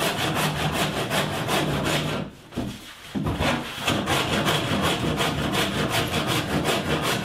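Handsaw cutting through the edge of a wooden stitch-and-glue kayak deck piece: rhythmic back-and-forth strokes, with a brief pause about two and a half seconds in.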